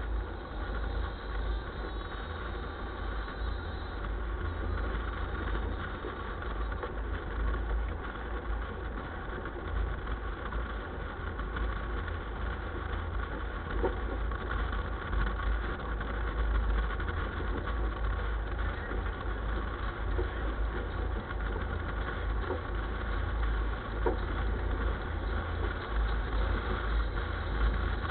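Vehicle engine running, a steady low rumble.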